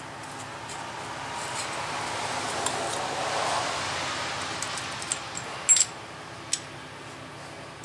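Several sharp metal clinks as steel tool pieces are handled and fitted against the removed front steering knuckle, the loudest pair a little before six seconds in. Under them a rushing noise swells over the first few seconds and fades.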